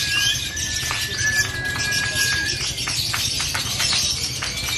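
Lovebirds chattering in a dense, high, continuous din. A long held whistle-like note runs through the first half, then a quick run of sharp, rapid clicking chatter follows.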